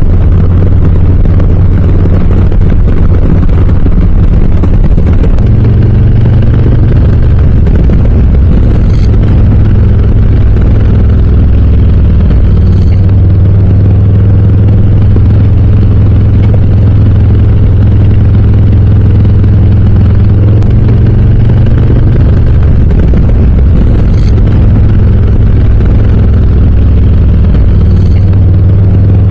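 Harley-Davidson Low Rider S's Milwaukee-Eight V-twin running through Cobra RPT slip-on exhausts while the bike is ridden, a loud, deep engine note whose pitch shifts up and down a few times with the throttle.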